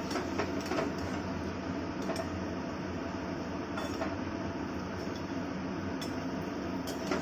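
Potato pieces frying in hot oil in a metal kadai, a steady sizzle, with a few clinks of a steel slotted spoon against the pan as fried pieces are lifted out.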